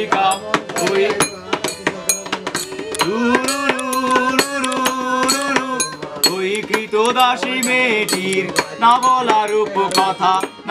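Informal group singing over quick hand slaps on a table used as a tabla. The voices hold one long steady note about three seconds in, then go back to shorter sung phrases.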